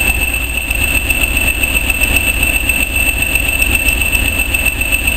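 Steady low rumble of a train on the move along the track, with a constant thin high whine over it and a few faint ticks.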